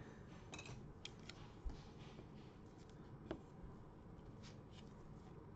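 Faint, scattered clicks and taps of small clear plastic card display stands being set down on a table by gloved hands.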